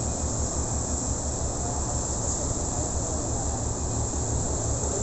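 Moran tugboat's diesel engines running hard with a fast, even low throb, over a steady high hiss.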